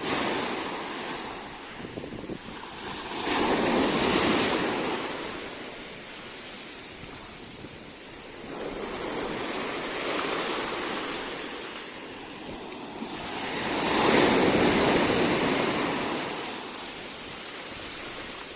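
Sea waves washing onto the shore, the surf swelling and fading in slow surges about every five seconds, three times, the last the loudest.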